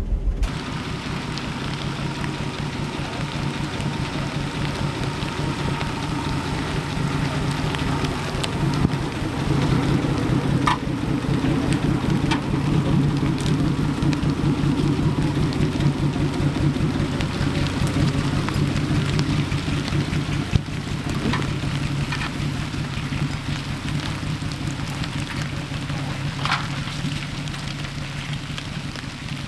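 Old Ford 4x4 truck's engine idling steadily as it crawls off-road in low gear with the clutch fully out, under steady rain on the truck. A few sharp knocks from the truck over the rough trail.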